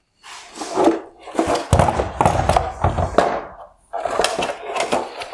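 Hard plastic parts of a halogen headlight assembly being handled: a run of irregular knocks, taps and scraping, with a short pause about two thirds of the way through.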